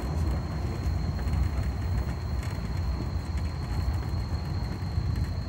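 Steady low rumble of a moving vehicle heard from on board, with a thin constant high-pitched whine over it.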